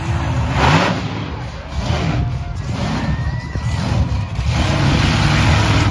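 Monster truck engine running loud and deep, revving up several times as the truck drives.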